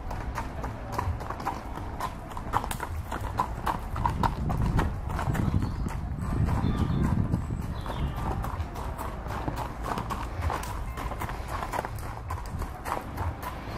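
Hoofbeats of a horse cantering on a sand arena, a steady run of dull thuds that swells louder around the middle as the horse passes close.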